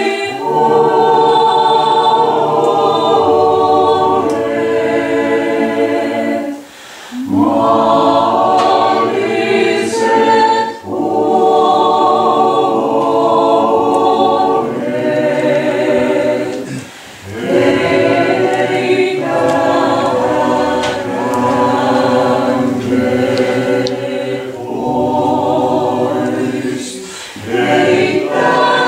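Several voices singing Orthodox liturgical chant a cappella, in long sustained phrases separated by short pauses.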